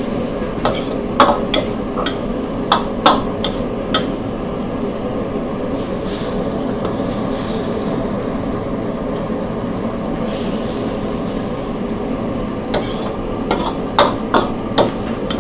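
Metal ladle scraping and clanking against a wok as pad thai noodles are stir-fried, over steady sizzling. The clanks come in clusters near the start and again near the end, with mostly sizzle in between.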